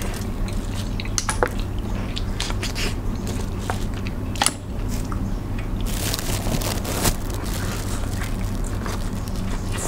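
Close-up eating sounds of a seafood boil eaten by hand: shells and pieces pulled apart, sticky sauce on fingers, and bites and chewing, with sharp clicks and crunches every second or few. A steady low hum runs underneath.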